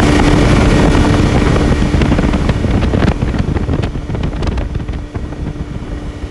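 Outboard motor running steadily, with wind rushing over the microphone.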